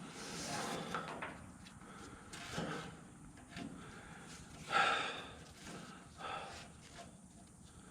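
Heavy hydraulic ram for a car lift being shifted by hand: intermittent scraping and knocking, loudest about five seconds in.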